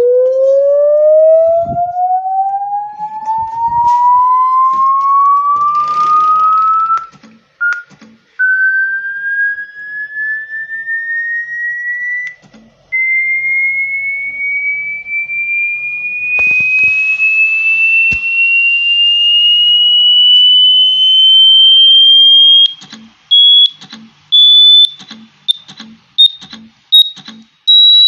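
A single electronic pure tone sweeping slowly and steadily upward in pitch, from a low hum to a high whistle. Near the end it breaks up into short on-off pulses.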